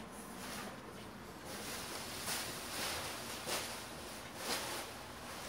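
Faint rustling and scuffing, a few soft swells of noise over a steady background hiss.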